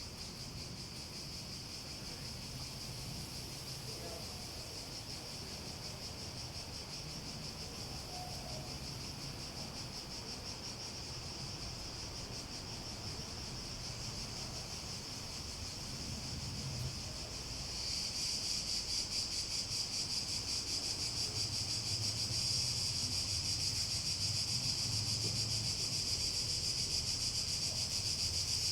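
Cicadas buzzing in a steady, high-pitched chorus that swells louder about two-thirds of the way through.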